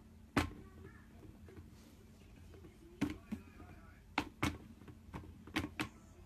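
Plastic swing lid of a small waste bin clacking as a kitten bats at it: about seven sharp knocks, several in quick pairs.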